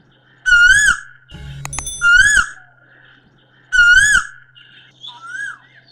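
Subscribe-button animation sound effects. A short, whistle-like swooping tone that rises and falls repeats three times, evenly spaced. A cluster of sharp mouse clicks comes between the first two, and softer little chirps come near the end, over a faint steady hum.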